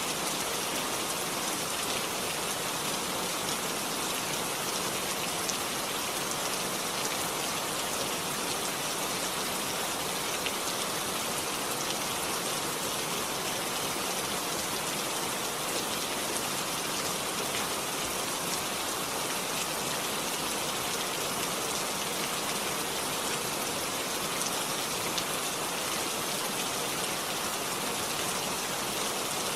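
Steady rainfall, a continuous even hiss of drops with faint scattered patter on a surface.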